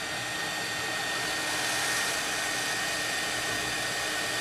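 Hot air rework station (858D) blowing a steady stream of hot air from its handpiece fan: an even rush of air with a thin, high, steady whine.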